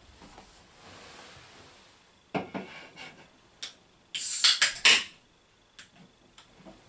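A drinking glass being fetched and handled: a few light knocks and clinks, then a louder clatter of knocks lasting about a second, some two-thirds of the way through.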